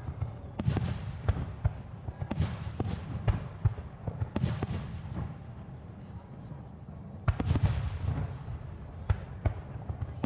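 Aerial fireworks shells bursting close by: a string of sharp bangs and crackles, with the biggest bursts about a second in, just after two seconds, about four and a half seconds in and about seven and a half seconds in.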